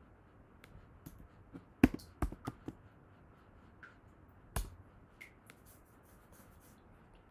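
Computer keyboard keystrokes: a quick run of four sharp taps about two seconds in, the first the loudest, then one more tap past the middle, with a few faint ticks between.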